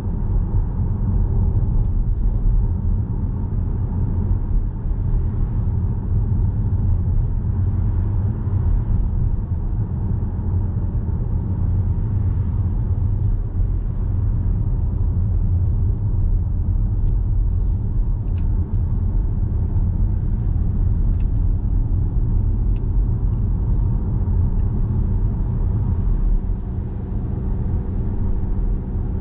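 Steady low road rumble of a car driving, engine and tyre noise heard from inside the cabin, with a few faint small ticks now and then.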